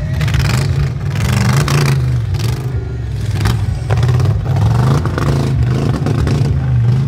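Off-road tube-frame buggy's engine revving in repeated surges while it crawls over dirt mounds, its pitch rising and falling under load.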